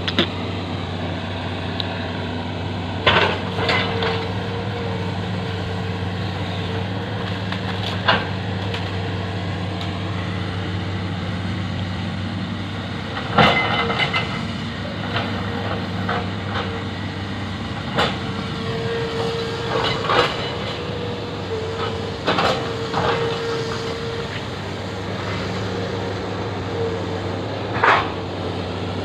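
Hitachi ZX200 excavator's diesel engine running steadily, with sharp clanks every few seconds, about eight in all.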